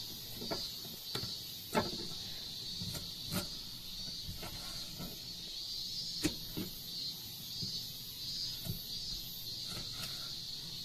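Squid being cleaned by hand on a wooden cutting board, with a kitchen knife alongside: scattered light knocks and taps from handling the squid and the knife on the board. A steady high-pitched hiss runs underneath.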